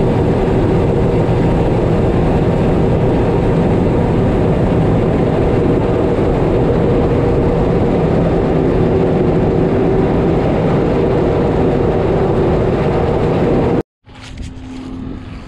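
Claas Tocano combine harvester running, a loud steady drone from its engine and threshing gear with a constant hum through it. It cuts off abruptly near the end, leaving a quieter, lower machine hum.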